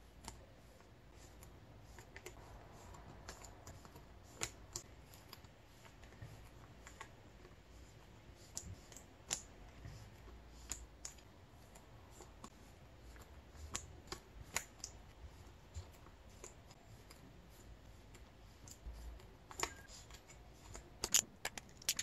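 Photocards being slid into plastic card sleeves and handled: soft rustling with scattered light clicks and taps, which get busier near the end.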